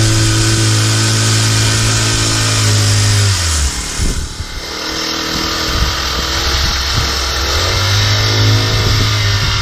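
Small gasoline engine running steadily, then dropping off sharply about three and a half seconds in and coming back up with a wavering pitch.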